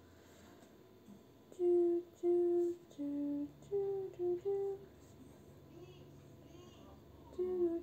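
A woman humming a short tune: about six short held notes in a row, then two more near the end.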